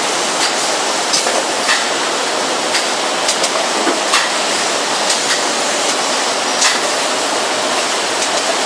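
Mannara stainless steel shrink-wrap bundling machine running: a steady loud rushing noise with irregular sharp clicks and clacks as the film sealing bar and conveyor cycle.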